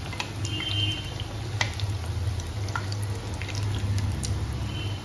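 Vegetable Manchurian balls deep-frying in hot oil: a steady bubbling with scattered crackles and pops as a spoon lifts the fried balls out one at a time. A low steady hum runs underneath.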